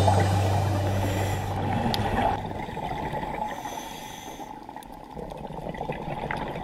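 Background music fading out, its low bass note dying away over the first two and a half seconds, leaving a muffled, low underwater water rush picked up through the camera's housing.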